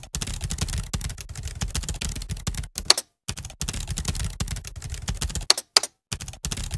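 Fast typing on a computer keyboard: a dense clatter of keystrokes that breaks off briefly twice, with a few louder single clicks in the pauses.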